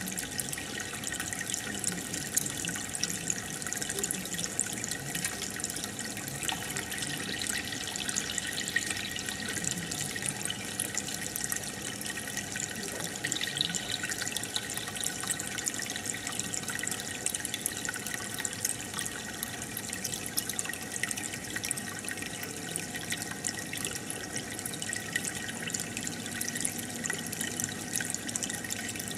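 Aquarium aerator bubbling steadily: a constant fizz and fine crackle of small bubbles breaking in the tank water.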